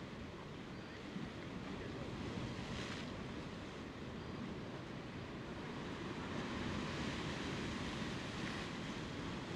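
Sea surf breaking and washing over shore rocks, a steady rushing noise.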